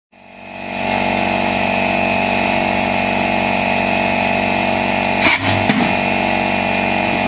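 A homemade compressed-air cannon goes off with a sharp blast about five seconds in, followed by a smaller pop. Behind it is the steady drone of a motor running.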